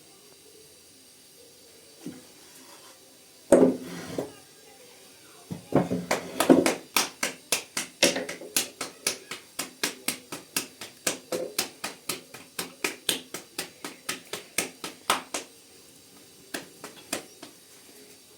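Rhythmic sharp taps or slaps, about three a second for some ten seconds, preceded by a couple of heavier thumps, made while flatbread dough is being worked.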